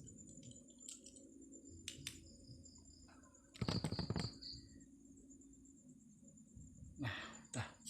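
Crickets chirring in a steady high, faint drone, with two short bursts of rustling and handling noise, the first and loudest about four seconds in and the second near the end.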